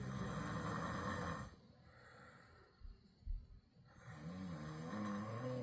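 A person snoring loudly, two long rattling snores with a wavering low pitch about four seconds apart, and a brief low thump in the quiet gap between them.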